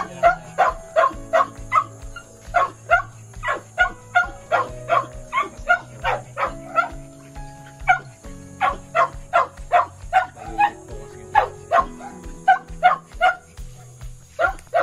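A small dog yapping in quick repeated barks, about two to three a second, over background music with held low notes.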